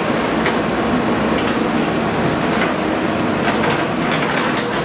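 A JCB earthmoving machine's diesel engine runs steadily under work, with sharp metallic clanks and knocks, several of them close together near the end.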